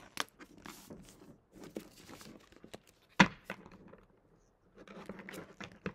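Tarot cards being gathered and shuffled by hand: scratchy rustling and small slaps of card stock, with one sharp snap about three seconds in.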